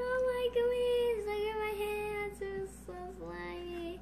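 A young girl singing a wordless tune: one long phrase of held notes stepping down in pitch, then two shorter, lower phrases.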